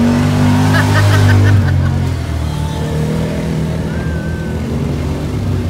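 Side-by-side UTV engine revving hard as it pulls through mud, loudest in the first second and a half, then easing to a steadier run.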